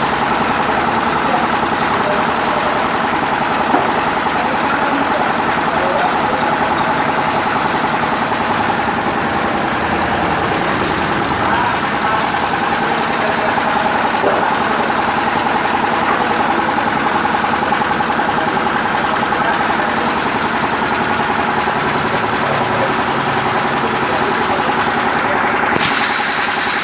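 A paving-block machine running steadily with a loud, constant mechanical din while hexagonal pavers are pressed. A higher hiss joins near the end.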